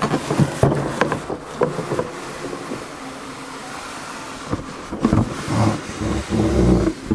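Cardboard being handled: a retail carton is slid up and off a boxed food dehydrator, with rustles, scrapes and small knocks. The scraping and low knocks grow louder and busier in the last couple of seconds.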